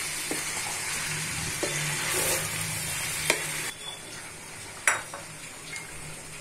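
Beef chunks and chana dal sizzling in oil in a wok-style pan as they are fried down (kosha), stirred with a wooden spatula that knocks against the pan four times. The sizzle drops abruptly a little after halfway, and the sharpest knock comes near the end.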